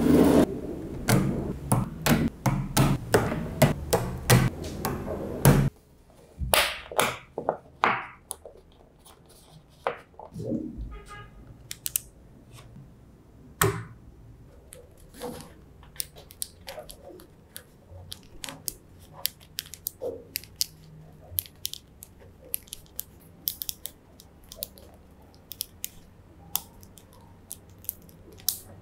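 Background music that cuts off about five or six seconds in, followed by scattered sharp clicks and taps of small magnetic balls snapping together and being placed.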